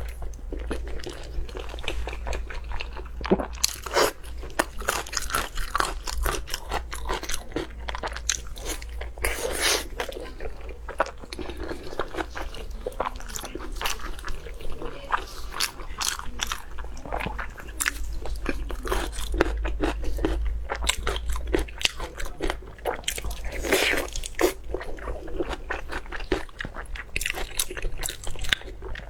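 Close-miked eating sounds: a person biting and chewing food, with frequent irregular crunches and wet mouth clicks.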